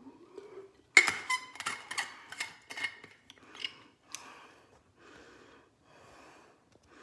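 Plastic sports water bottle being handled after a drink: a sharp click about a second in, followed by a run of clicks and rattles for a few seconds as the bottle and cap are worked, then a few soft hissing swells.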